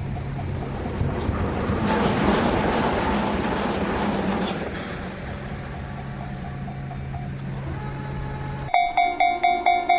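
A train passing at a level crossing, a steady low hum under a rush that swells and fades over the first few seconds. Near the end a Japanese level-crossing warning bell starts suddenly and loudly, ringing its rapid repeating 'kan-kan' ding about two and a half times a second.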